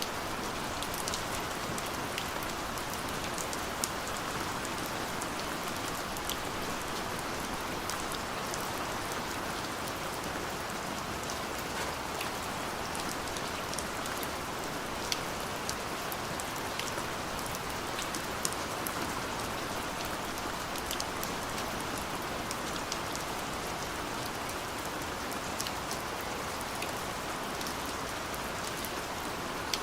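Steady rain falling, a continuous hiss with individual drops ticking sharply on a surface here and there.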